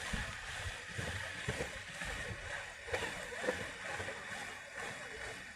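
Aerosol chain wax spraying onto a motorcycle chain: a steady hiss with a few faint knocks.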